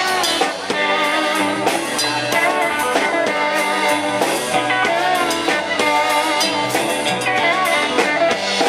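Instrumental rock band passage, guitar over a steady drum kit beat, between sung lines of the song.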